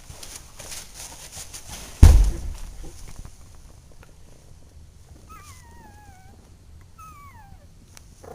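Two-week-old puppy whimpering: two high, falling squeals in the second half. About two seconds in there is a loud thump, with light rustling and clicks of handling.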